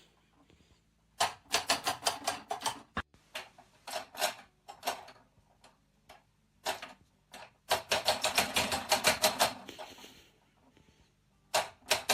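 Runs of rapid, sharp clicking, several clicks a second, like typing, coming in four bursts with silent gaps between them.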